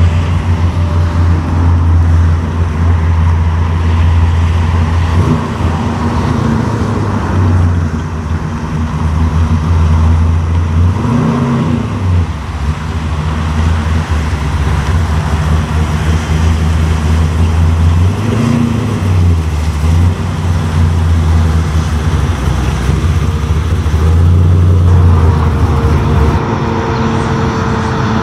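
A 1957 Chevrolet's engine idling with a deep, steady note as the car rolls slowly, with two brief revs about eleven and eighteen seconds in. Near the end it gives way to a second car's engine.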